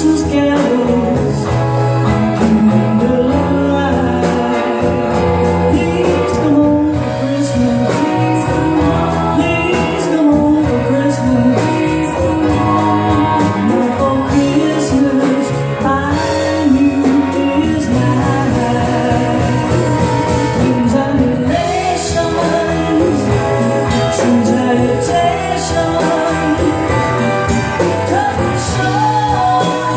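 A live band and singer performing a Christmas song: a sung melody over guitar, bass and drums with frequent cymbal strikes.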